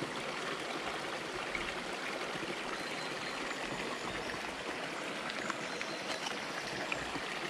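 Small woodland stream running over rocks: a steady, even rush and trickle of water.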